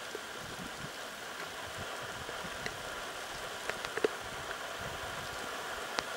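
Steady hiss of rain falling on tea bushes, with a few sharp drips ticking close by, the loudest about four seconds in.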